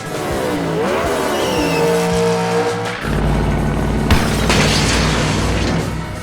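Dubbed-in monster truck engine sound effects over background music. Revving engines swoop up and down in pitch for the first few seconds, then give way to a deep, heavy engine rumble about halfway through.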